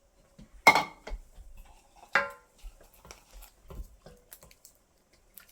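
Cookware and utensils clanking in the kitchen: two sharp, ringing clanks about a second and a half apart, followed by a few lighter knocks.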